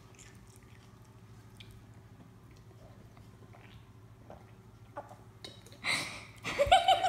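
Faint sipping and swallowing from a soda can. About six seconds in, a sharp breathy burst, then loud, pulsing high-pitched laughter from a girl.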